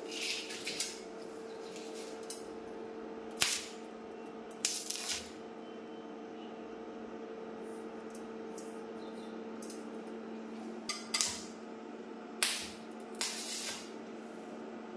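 Inverter TIG welding machine humming steadily, with about six short hissing bursts from the torch as the arc is struck for brief tack welds on stainless steel railing pipe.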